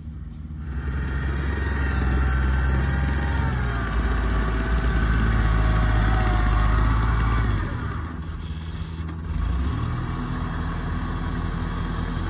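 Engine of a laden tracked rice-bag carrier running as it crawls past, with a wavering whine over the engine note. The sound dips briefly about eight seconds in, then the engine runs on steadily.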